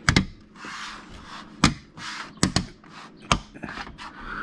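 About half a dozen sharp knocks and taps as a replacement RV window frame is pushed into its opening in the camper wall, with rustling between them.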